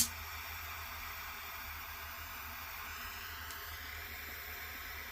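Heat gun switched on with a click, then its fan blowing with a steady hiss as it heats heat-shrink tubing.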